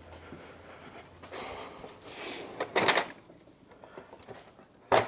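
Rustling and rubbing of tools being handled, with a loud sharp clatter about three seconds in and another knock near the end, as a lost 15 mm socket is searched for.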